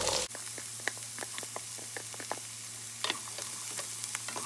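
Diced zucchini frying in hot oil in a nonstick pan: a clatter as the cubes are tipped in, then a steady sizzle with many small crackles. About three seconds in, a wooden spatula scrapes and stirs them.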